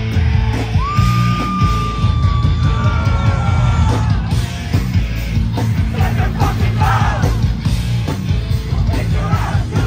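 Live hardcore band playing at full volume: heavy distorted guitars, bass and drums chugging, with a high note held for about two seconds near the start and shouted vocals later on.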